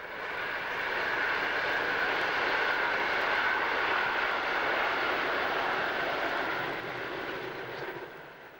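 Diesel locomotive hauling a train past, its engine noise swelling over the first second, holding steady, then fading away near the end.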